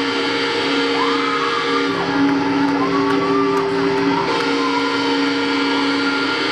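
Live band with loud electric guitars holding sustained chords that change about every two seconds, with a higher line sliding in pitch above them.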